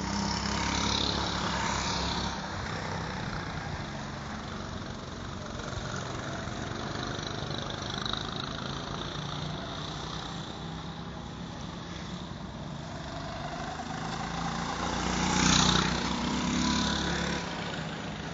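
Go-kart engines running around the track, with a kart passing close about a second in and another accelerating, its engine note rising, to pass loudest about fifteen seconds in.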